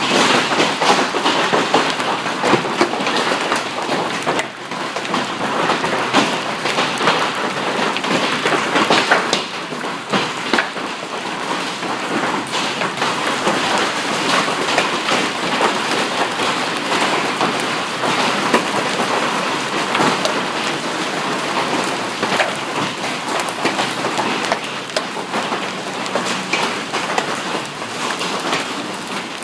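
Hailstones pelting the building and the pavement: a dense, continuous clatter of many small impacts, easing slightly about ten seconds in.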